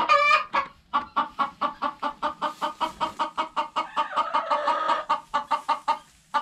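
Hen clucking in a fast, even run of short clucks, about five a second, opening with a louder drawn-out squawk.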